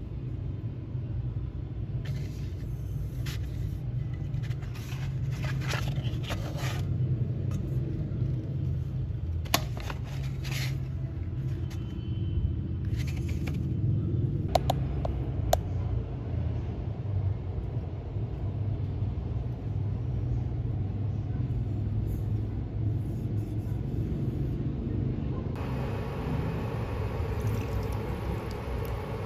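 Dishwashing at a stainless steel sink: a steady low rumble throughout, with brief scrubbing scrapes and a couple of sharp clinks of a frying pan against the sink about halfway through.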